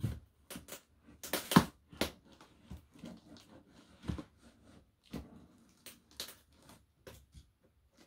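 A cardboard box wrapped in packing tape being worked open by hand: irregular scratching, scraping and tearing of tape and cardboard, loudest in a cluster about a second and a half in.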